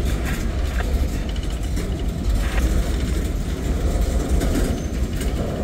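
Freight cars rolling past on the rails: a steady rumble of steel wheels, with scattered short clanks and clicks.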